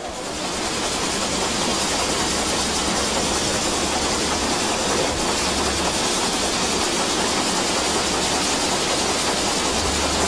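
Swiss Federal Railways steam locomotive running at speed: a steady hiss of steam over the rumble of its wheels and running gear, fading in over the first second.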